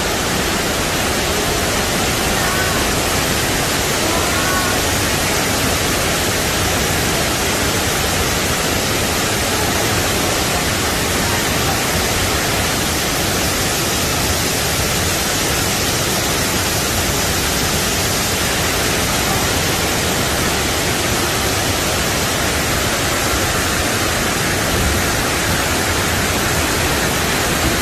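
Fukuroda Falls, a wide multi-tiered waterfall, rushing: a loud, steady, unbroken sound of heavy falling water. Faint voices are heard briefly in the first few seconds.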